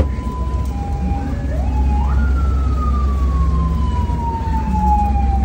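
A siren wails, climbing in pitch about two seconds in and then falling slowly and steadily, over a low steady rumble.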